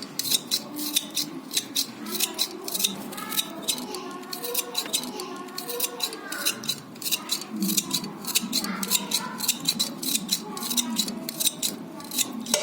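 Knife cutting tomatoes into a cooking pot: a steady run of sharp knife clicks, about three a second.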